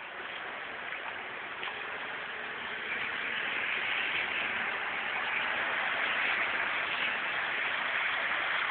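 Steady rushing hiss of water, growing a little louder about three seconds in.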